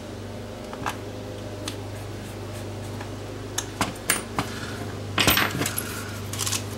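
Scattered clicks and light clatter of a plastic battery charger and a small screwdriver being handled: the back-cover screws are turned in, then the charger is flipped over and set down on the workbench, with a denser run of knocks and taps about five to six and a half seconds in. A steady low hum runs underneath.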